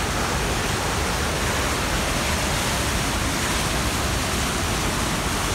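Niagara River rapids rushing over the brink of Niagara Falls: a steady, unbroken noise of fast water.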